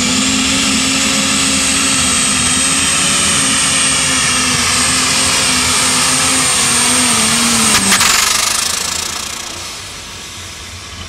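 Alcohol-burning Allis-Chalmers D21 super stock pulling tractor engine running flat out under load as it pulls the sled, with a high turbo whine held steady over it. About eight seconds in there is a sharp crack, and the engine winds down as the pull ends.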